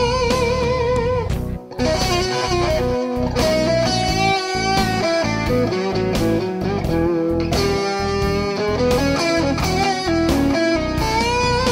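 Washburn Parallaxe electric guitar playing a fast blues turnaround lick in E, full of half- and whole-step string bends and wavering vibrato, with a short break just under two seconds in.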